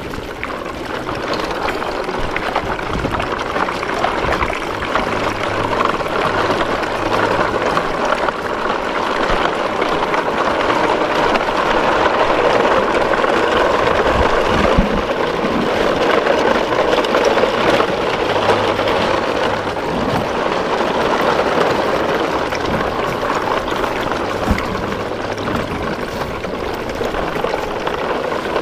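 Steady rushing of shallow water flowing along a concrete channel.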